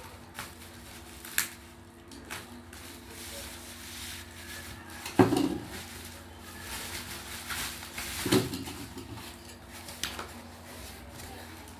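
Bubble-wrap packaging being slit open with a box cutter and unwrapped by hand on a wooden table: plastic rustling and crinkling with small sharp clicks, and two louder knocks about five and eight seconds in.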